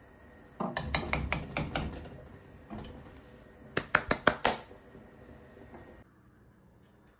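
A cooking spoon stirring a large pan of nihari gravy and knocking against the pan, in two bursts of sharp clinks; the second, about four seconds in, is the loudest, about five quick knocks.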